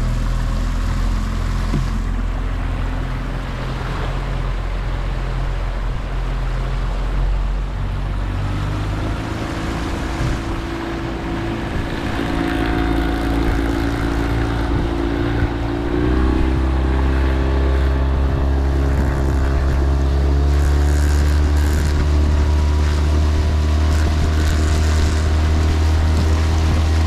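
Small outboard motor driving an inflatable boat, running steadily and then throttled up about 16 seconds in, its pitch stepping higher and its sound growing louder, over wind and water noise.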